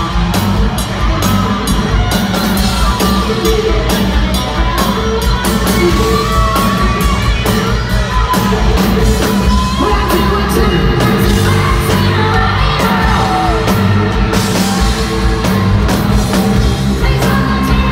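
Live hard rock band playing loud, heard from the audience: distorted electric guitar leads with sliding, bending notes over drums and bass, and a singer's voice yelling at times.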